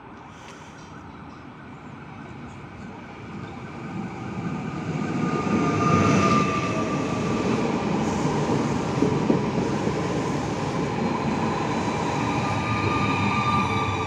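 Pesa Elf electric multiple unit 22WEd-006 growing louder over the first six seconds as it comes close, then running loud and even, a rumble of wheels on rails with a few high steady tones over it.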